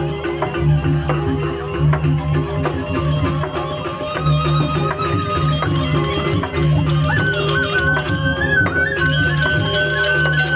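Balinese gamelan music: repeating low pitched strokes in a steady interlocking pattern, with a high held melody line that comes in about seven seconds in.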